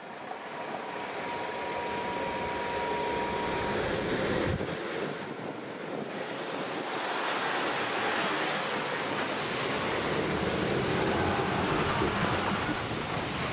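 A lorry drives up to and over the level crossing, its engine and tyre noise building through the second half and loudest as it passes close by near the end, with wind on the microphone. A thin steady high tone sounds for the first few seconds.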